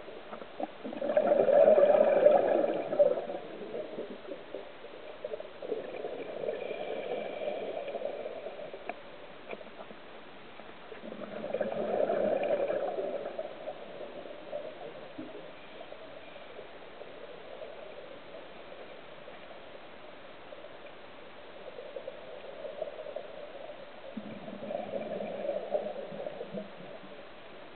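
Scuba diver's exhaled bubbles from the regulator: bubbling bursts of air every several seconds with a steady hiss between them, the loudest about two seconds in.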